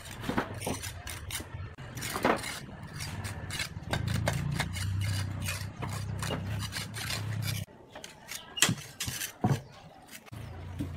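Steel trowel scraping and tapping mortar across brick steps: a series of irregular scrapes and short clicks. Under it a low steady hum runs and cuts off abruptly about two-thirds of the way through.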